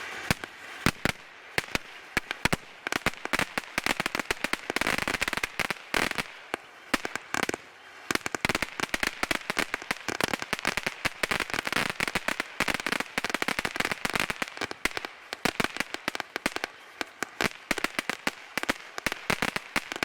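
Dominator 'Unbeelievable' firework fountain in its crackle phase: a dense, continuous stream of sharp crackling pops over a steady hiss of the fountain.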